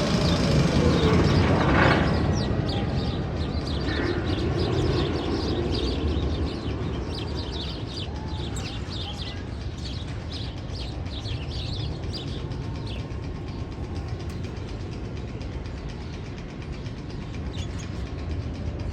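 Sound-effect track in the Magnum XL 200 coaster tunnel: a low rumble that eases off after about six seconds, overlaid with many quick bird chirps.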